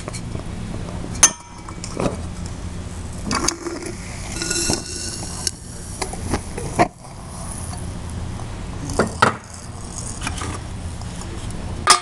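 A metal tool clinking and scraping against a hot square metal crucible as aluminum cans are melted down in it. There are sharp knocks every couple of seconds and a brief ringing clang about four seconds in.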